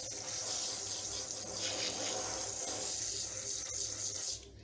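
Handheld shower sprayer spraying water onto a wet Angora rabbit sitting in a basin of water: a steady spray that stops shortly before the end.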